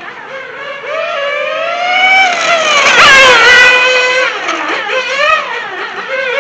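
1/8-scale radio-controlled racing car running hard around the track, its high-pitched engine note climbing steadily and loudest about three seconds in. It then drops and rises in short swings with the throttle through the corners.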